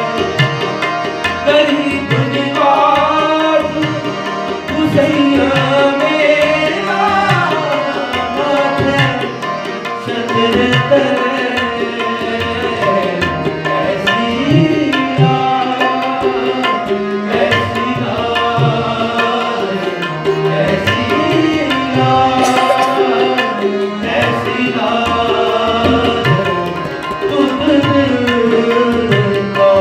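Sikh kirtan: a tabla keeps up a steady rhythm of strokes under a harmonium's held chords, and voices sing the melody of a Gurbani shabad.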